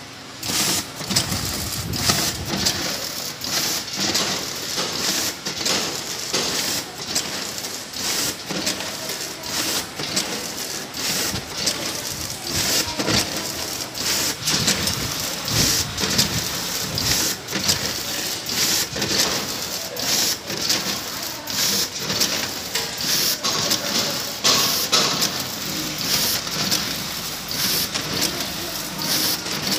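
Vertical form-fill-seal machine running while it bags caramel-coated popcorn: a dense, irregular patter and rattle of many small hard impacts as the popcorn drops through the filler into the bags, with the machine's clatter.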